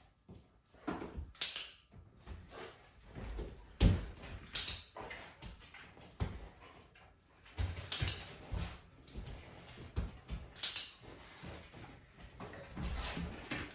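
A dog moving about during a sniffing search, with short jingling bursts every three seconds or so and light knocks and rustling in between.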